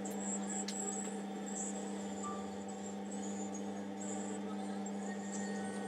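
Homemade electric pottery wheel running with a steady motor hum while about 12 lb of clay is being centered on it under hand pressure. Faint high-pitched squeaks come and go over the hum.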